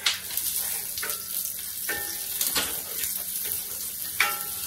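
Diced onions sizzling as they saute in a cast iron skillet, with a few scrapes and knocks of a wooden spoon stirring them against the pan.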